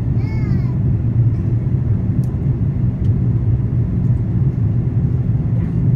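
Steady low rumble of cabin noise inside an Airbus A340-300 airliner during its descent on approach: engine and airflow noise.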